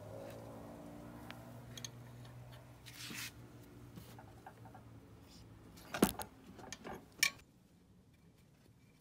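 A few sharp metallic clinks of a 17mm wrench against the oil strainer screen cap under the Honda Ruckus / Zoomer 50 engine, the loudest about six seconds in and the last just past seven. A low steady hum sits underneath for the first half.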